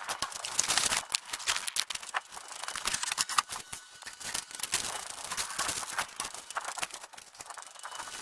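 Irregular crackling and rustling with many small sharp clicks, like something being handled close to the microphone.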